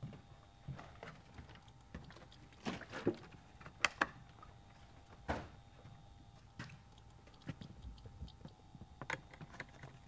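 A person moving about in a quiet room: scattered faint knocks and clicks over a faint steady hum.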